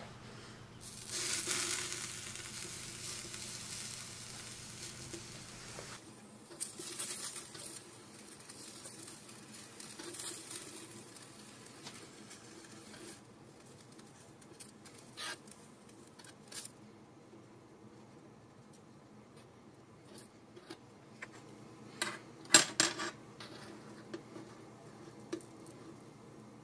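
Miniature food sizzling on a tiny hot metal griddle, the hiss loudest in the first few seconds and then coming and going. A small metal spatula scrapes and taps against the griddle plate, with a sharp cluster of clicks near the end.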